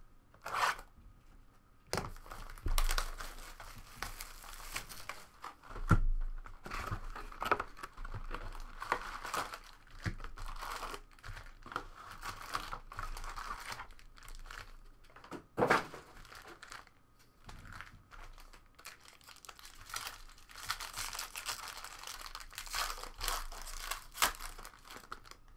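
Plastic shrink wrap being torn off a 2011 Bowman jumbo baseball card box, then silver foil card packs crinkling and being torn open by hand. There are a few sharp snaps along the way.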